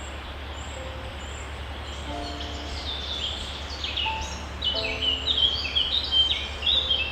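Songbirds chirping: quick short chirps that start a few seconds in and build into a dense, louder chatter, over a steady hiss and low hum. Soft held low tones sound now and then underneath.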